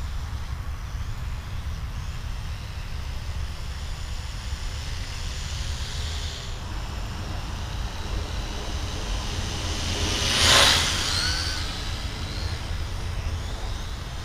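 Steady low outdoor rumble, with a small quadcopter's propeller buzz swelling loud as it sweeps close past about ten seconds in, then fading away with its pitch sliding.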